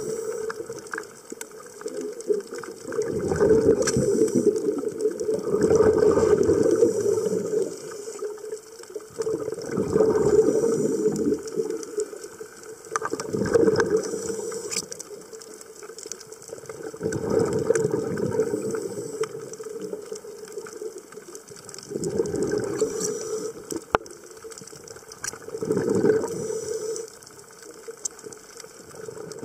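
Scuba diver's regulator breathing heard underwater: exhaled bubbles rumble out in regular surges about every three to four seconds, with quieter crackle between breaths.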